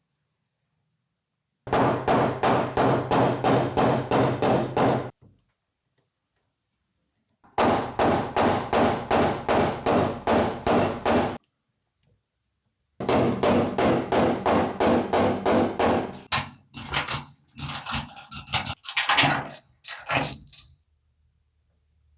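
A hammer striking the steel sheet-metal body panels of a Datsun 240Z in quick even blows, about four a second, in three separate runs. Near the end the blows come louder and more spaced, with a high metallic ring.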